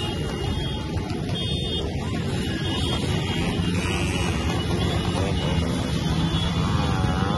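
Engines of a pack of motorcycles running together at speed, a dense steady low rumble, with a short high beep about a second and a half in.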